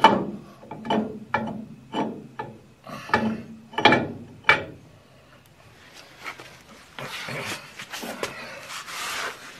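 Rear half shaft of a 1959 Morris Minor axle being wiggled into the differential. About eight sharp metal knocks come in the first four and a half seconds, roughly two a second. Near the end comes a longer rubbing, scraping sound as the shaft is worked round.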